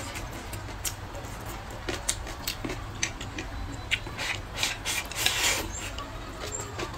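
Close-miked eating sounds: wet chewing and smacking clicks from the mouth, with a louder burst of noodle slurping about five seconds in.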